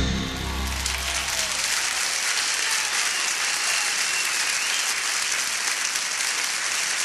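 Live concert audience applauding steadily as a rumba song ends, the band's last chord dying away in the first second or so.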